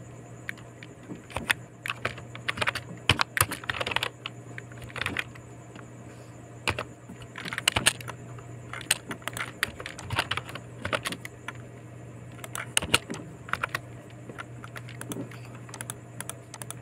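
Typing on a computer keyboard: irregular keystrokes, some in quick runs with short pauses between, over a steady low hum.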